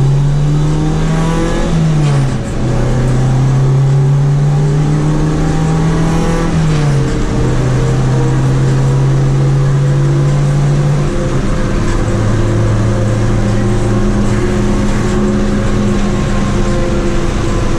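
Honda Civic hatchback's four-cylinder engine under acceleration, heard from the driver's seat: the engine note climbs in pitch, drops sharply with an upshift about two seconds in and again about seven seconds in, then settles into a steady cruise.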